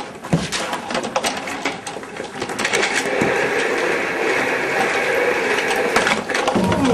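Casters of a swivel office chair rolling fast across a hard floor, rattling and clattering: a few knocks at first, then a steady rolling rumble from about two and a half seconds in that ends shortly before the close.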